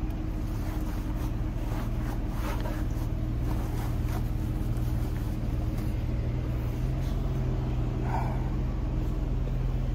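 A car engine idling steadily with a low, even hum, and a few faint clicks and knocks over it.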